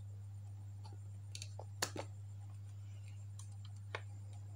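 Steady low electrical hum from the powered amplifier board under test, with a few small clicks and taps of handling, the sharpest a little under two seconds in.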